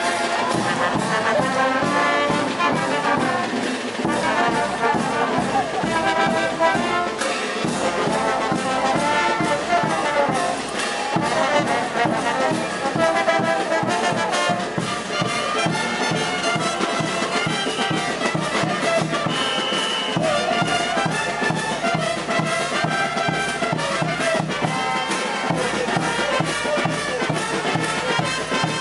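Brass band playing diablada music: trumpets and trombones over a steady beat of drums.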